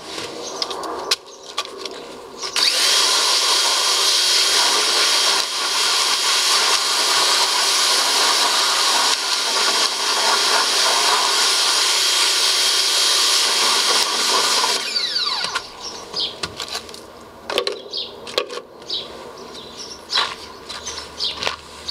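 Skil 0761 electric pressure washer running for about twelve seconds, the hiss of its water jet blasting down into a floor drain with a steady high whine through it; it starts and cuts off suddenly. Before and after it, birds chirp and the metal drain grate clinks.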